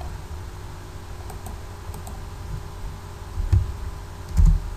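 A few scattered computer keyboard keystrokes, as a password is typed. Two louder, dull thumps come about three and a half seconds in and near the end.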